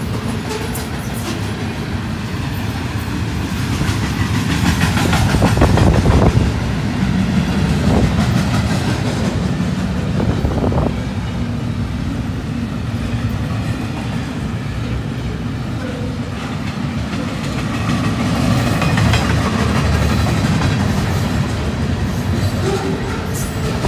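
Double-stack intermodal freight cars rolling past on steel wheels: a steady rumble with clickety-clack from the wheels, loudest about five to seven seconds in.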